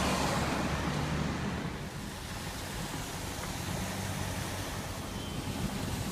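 Steady low rumble and hiss of a moving car, heard from inside the cabin, a little louder in the first second or two.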